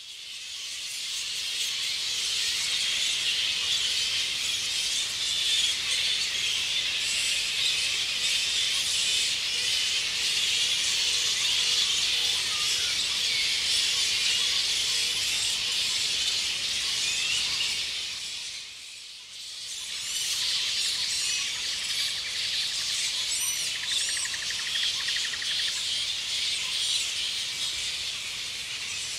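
A roosting flying fox colony: a dense chorus of high-pitched squabbling squeals and chatter. It fades in at the start and dips briefly about two-thirds of the way through.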